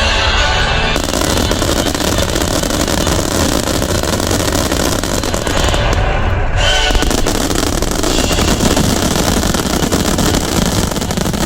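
Dense, continuous barrage of fireworks from a wide starmine display: rapid overlapping bursts merging into one unbroken wall of sound, growing fuller about a second in.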